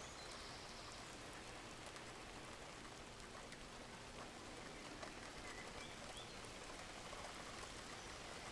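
Steady, soft rainfall, with a few faint bird chirps over it a little past the middle.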